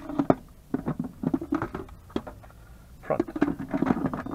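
Instant Pot lid scraping and clicking against the rim of the cooker as it is set on and twisted into its locked position, in three bouts of rattling.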